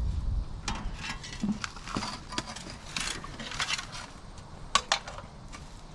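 Irregular scrapes, clicks and knocks of digging among rocks and wet mud, with a sharp double knock about five seconds in.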